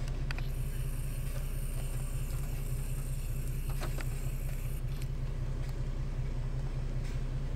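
Car engine running at low speed, heard from inside the cabin as a steady low hum, with a high hiss over the first few seconds and a few faint clicks.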